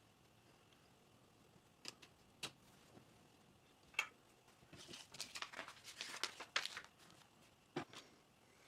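Faint clicks and rattling of plastic Lego Technic pieces being handled: a few separate clicks, then a quick run of clicking about five seconds in, then two more clicks near the end.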